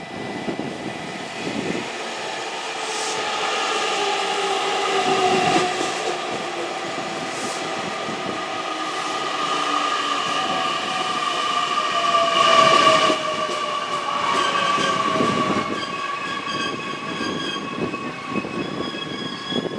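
JR Kyushu 813-series electric train running in along the platform. Its motors whine in tones that slide downward in pitch as it slows, over steady rail noise, with a high steady squeal. Near the end several high steady tones ring on as it draws to a stop.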